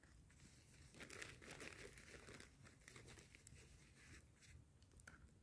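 Faint, irregular crinkling and rustling of plastic ration-pack wrappers being handled, mostly between about one and five seconds in.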